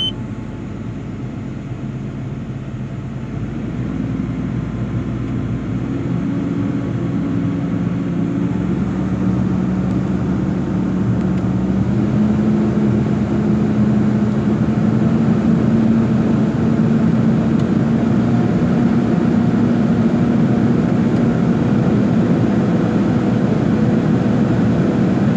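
Volvo EC210B excavator's diesel engine running, heard from inside the operator's cab. Its speed is raised in steps from about 900 rpm to about 1,800 rpm, the pitch climbing and the engine growing louder over the first twelve seconds, then holding steady. This is a run-up test after a leaking injector was replaced with a new Bosch one.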